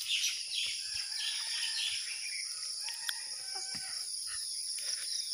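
Rural morning ambience: steady high-pitched insect chirring, with birds calling over it in short pitched calls through the middle.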